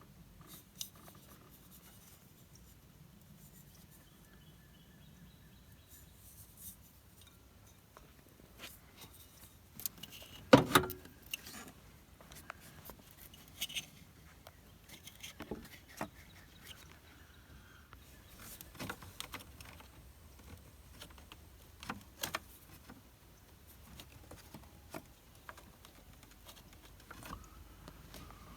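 Scattered light clicks and clinks of hands handling hoses, clips and metal parts in a van's engine bay, with one louder knock about ten seconds in.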